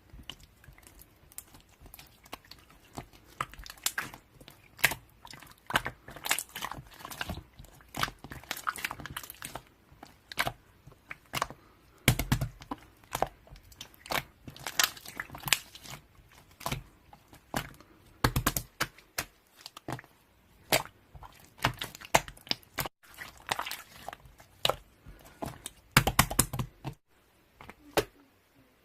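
Irregular crinkling and crackling with sharp clicks at an uneven pace, in several denser clusters.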